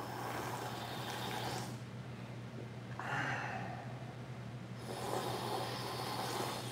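A man slurping and sucking juice out of a whole watermelon pressed to his mouth. Three long, hissing slurps with short pauses between them.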